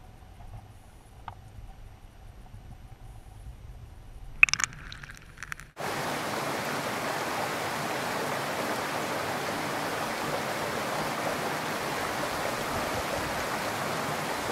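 Muffled, quiet underwater rumble with a few sharp knocks about four seconds in, then an abrupt cut to the steady rushing of creek water running over stones.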